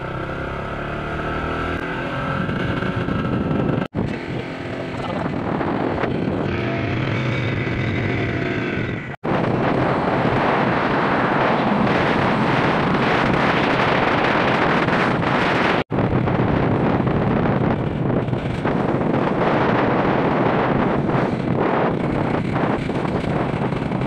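Motorcycle riding along a road: its engine running under heavy wind rush on the microphone. The sound cuts out abruptly three times for a split second.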